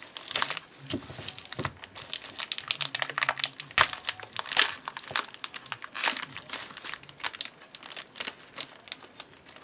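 Irregular crinkling and rustling of modelling clay being handled, pulled off and worked in the hands, with many small clicks.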